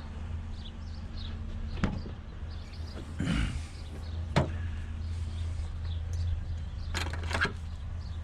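A few knocks and clunks of junk being handled, over the steady low hum of an idling vehicle engine, with birds chirping faintly.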